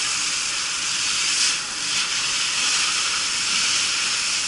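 Steady loud hiss of a fire hose stream spraying water onto a burning city bus, the water flashing to steam off the hot bus, dipping briefly about one and a half seconds in.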